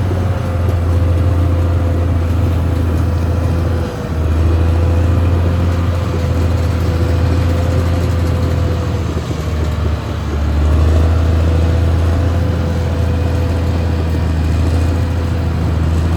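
Caterpillar D6R XL bulldozer's diesel engine running steadily as the machine travels, a deep drone with a faint whine over it. The sound dips briefly about four seconds in and again about ten seconds in.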